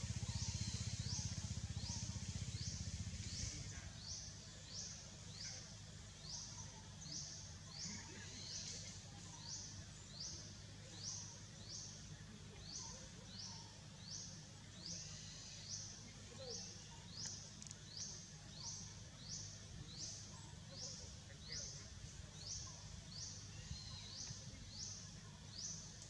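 A high-pitched animal call repeating evenly, about three strokes every two seconds, over a low rumble that eases off after about three seconds.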